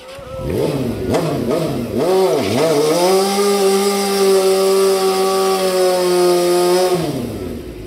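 Sportbike engine revving up and down several times, then held at high, steady revs for about four seconds while the rear tyre spins in a smoking burnout, dropping off about seven seconds in.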